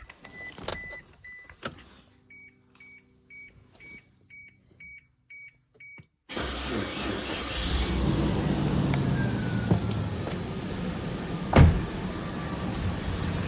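Suzuki Grand Vitara XL7's H27A 2.7-litre V6 engine starting suddenly about six seconds in and then running with a steady hum, after dashboard warning beeps and evenly spaced ticking with the ignition on. There is one sharp knock near the end. The owner cannot tell whether the hum that rises with the revs comes from the viscous fan clutch or the fan.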